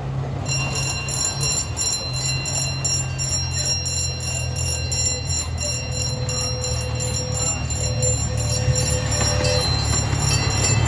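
A miniature train locomotive's bell ringing rapidly, about four strokes a second, starting about half a second in. Under it the locomotive's engine runs with a steady low hum that grows slowly louder as the train approaches.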